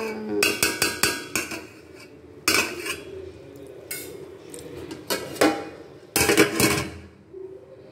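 A metal spoon clinking and scraping against an aluminium cooking pot while cooked pulao rice is turned over, in several separate spells of clatter, the loudest near the end.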